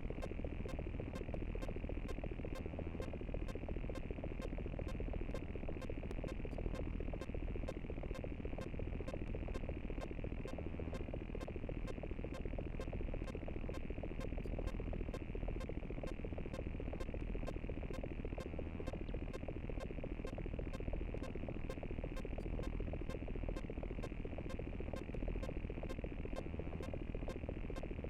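Synthetic digital glitch sound effect: a continuous, low-heavy electronic buzz and crackle, flecked with rapid irregular sharp clicks.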